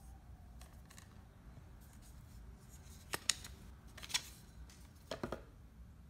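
Bamboo slats of a handbag clacking and knocking together as it is handled: a handful of short, sharp clicks in small groups, the loudest about three and four seconds in.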